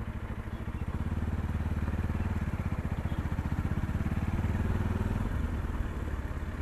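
Motorcycle engine running at low speed, with a steady low pulsing that grows louder about a second in and eases slightly near the end.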